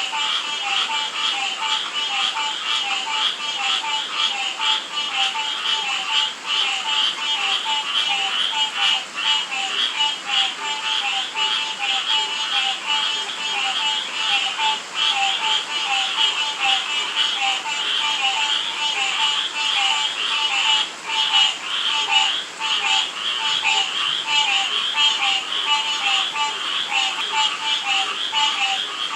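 A chorus of frogs and toads calling continuously in the rain: a dense pulsing trill of higher calls, with one frog repeating a short lower note about two times a second, over the steady hiss of rainfall.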